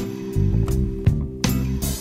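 Instrumental background music with plucked-string notes.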